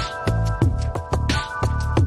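Background music with a steady beat, a deep bass line and held chords.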